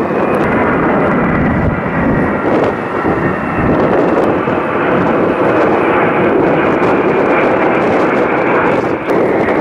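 Ilyushin Il-76 military transport's four turbofan engines in flight during a paratroop drop: a loud, steady rumble with a faint high whine.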